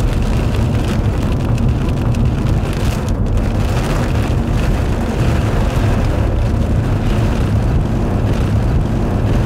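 Steady, loud rumble of a car driving through a thunderstorm, heard from inside the car: road and wind noise with rain on the body and windshield.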